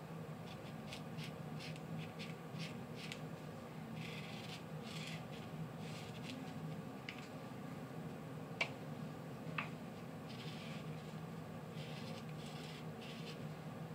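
Marker pen tip drawing on felt: faint, scratchy rubbing strokes in short irregular runs as ear outlines are traced. Two small sharp ticks come about two-thirds of the way through.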